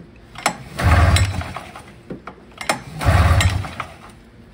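Polaris snowmobile two-stroke engine being pulled over with the recoil starter rope, twice, about two seconds apart, each pull a short burst of cranking with sharp clicks. The engine turns over but does not fire: it is being cranked to get the pulse fuel pump drawing fuel through new lines.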